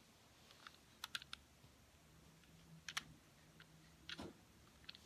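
Faint, irregular plastic clicks of a mini Rubik's cube's layers being turned by hand, a few scattered snaps over several seconds.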